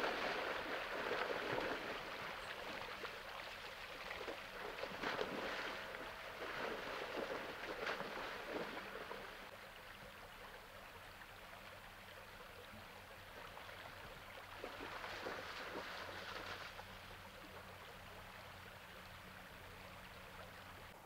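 Shallow creek rapids running, the water sound louder and splashier through the first half and again briefly around fifteen seconds in, as a black bear wades the shallows chasing fish.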